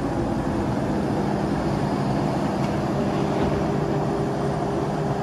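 Large Liebherr 974 crawler excavator running steadily as it works, its engine and hydraulics giving a continuous drone with a steady hum. A higher steady tone joins about three seconds in as the bucket swings up over the truck.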